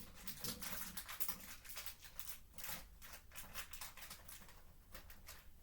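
Plastic candy packaging and tray crinkling and crackling as it is handled, a rapid irregular run of crackles that thins out near the end.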